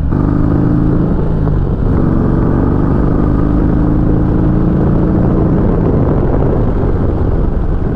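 Harley-Davidson Sport Glide's V-twin engine running steadily at road speed under heavy wind noise across the windscreen and microphone.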